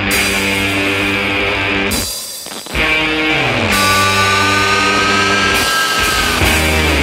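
Rock music with guitar: sustained notes with some sliding down in pitch. The music drops away briefly about two seconds in, and a high held melody line comes in near the middle.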